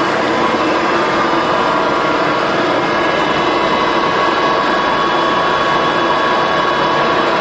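Littleford FM300D plow mixer running: its 7.5 hp drive turning the plow shaft gives a loud, steady noise with several constant tones that hold unchanged throughout.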